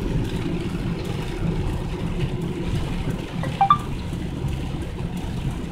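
Steady low road and engine rumble heard inside a car's cabin while driving in the rain, with a short higher-pitched chirp about three and a half seconds in.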